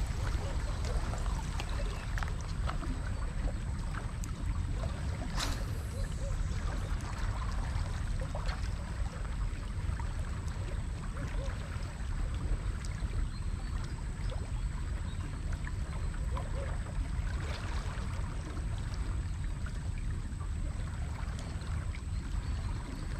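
Waterside outdoor ambience: a steady low rumble, like wind on the microphone, with faint water sounds and scattered light ticks and rustles from the angler's handling of his fishing rod and reel.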